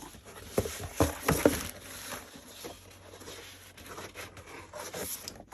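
Sheets of card-weight patterned craft paper being handled and turned over, rustling, with a few sharp crinkles and taps close together about a second in.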